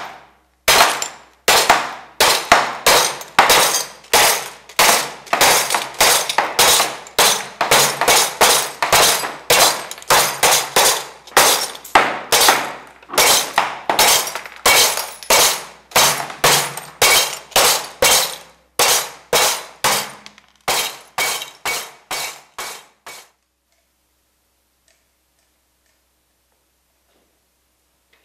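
Glass being smashed over and over: a rapid, loud run of sharp crashes, about two to three a second, that stops abruptly near the end.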